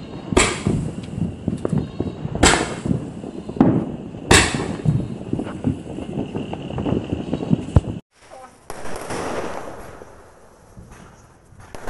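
Multi-shot aerial fireworks firing, three loud bangs about two seconds apart with smaller cracks between them. After a sudden break about two-thirds of the way in, a softer crackling hiss of bursting sparks.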